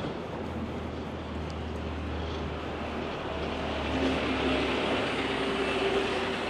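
A passing vehicle: a steady low engine hum, joined about halfway through by a higher steady tone that lasts to the end.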